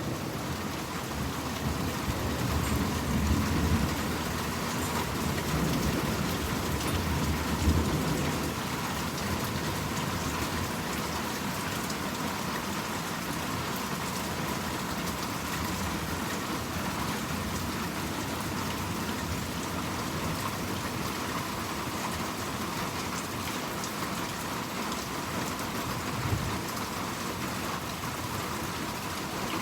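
Steady rain pattering on surfaces, with rolling thunder rumbling low for the first several seconds, peaking briefly around eight seconds in.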